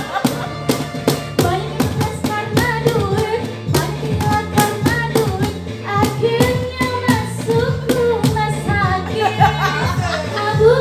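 Pop song with a steady beat and bass line, sung by a female voice.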